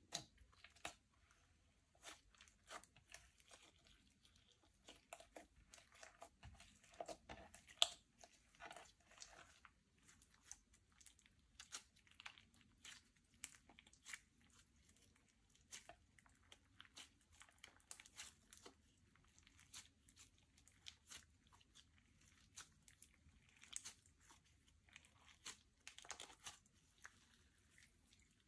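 Slime being squeezed and stretched by hand, giving quiet, irregular sticky clicks and crackles, thickest in a flurry a few seconds in and again near the end.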